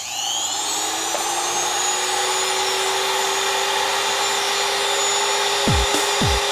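High-speed electric hand grinder spinning up and then running with a steady high whine as its tapered bit carves inside a block of acrylic. Low thuds of background music come in near the end.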